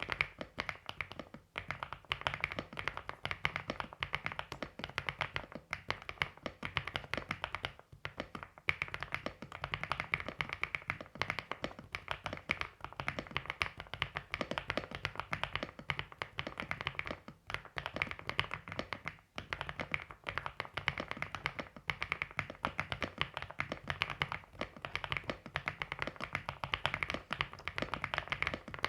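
Continuous fast typing on an AULA F75 mechanical keyboard fitted with MMD Vivian 28g linear switches: a dense stream of key clacks, with a couple of brief pauses.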